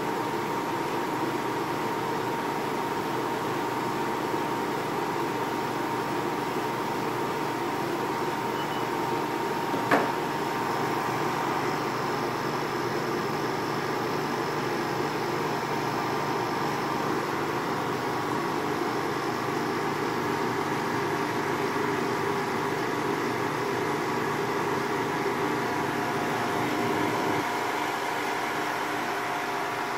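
Opened-up portable room air conditioner running, its compressor and fan giving a steady hum and rush of air with a few steady tones through it. A single sharp knock comes about ten seconds in.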